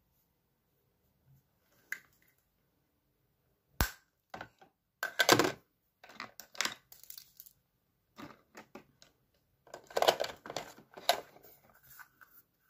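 Makeup compacts and cases being rummaged through and handled: a sharp click about four seconds in, then scattered bursts of clicking and clattering as items are picked up and put down.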